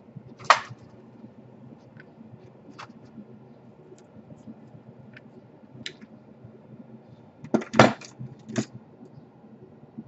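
Scattered clicks and knocks of laptop case parts and tools being handled: one sharp knock about half a second in, a few light ticks, and a cluster of louder knocks near the end.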